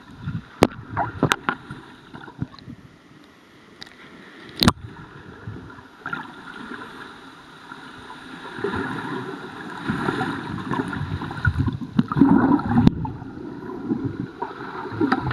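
Pool water churning and gurgling, heard underwater, as a kayak capsizes and the paddler hangs upside down beneath it during an Eskimo roll. A few sharp knocks come in the first five seconds, and the swirling and bubbling grow loudest from about eight seconds in.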